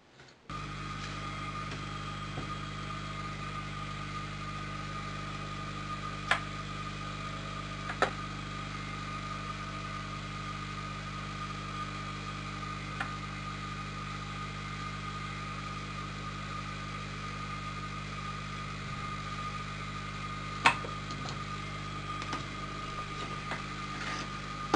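Steady machine hum that starts suddenly about half a second in and cuts off at the end, with a few sharp clicks over it, the loudest about 21 seconds in.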